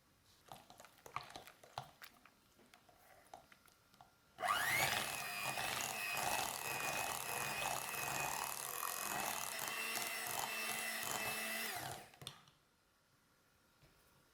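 A few soft light taps and clicks, then a small electric kitchen appliance motor starts about four seconds in, its whine rising as it spins up. It runs steadily for about eight seconds, then winds down and stops.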